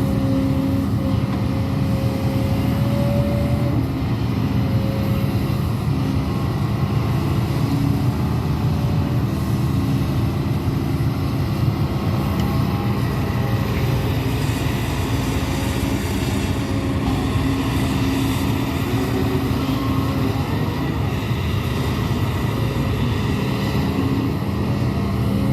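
Hidromek 200W wheeled excavator's diesel engine running steadily under work, with a steady tone held over the rumble.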